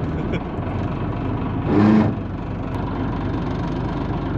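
Fishing boat's engine idling steadily under the fight. About two seconds in there is a short grunt-like vocal sound.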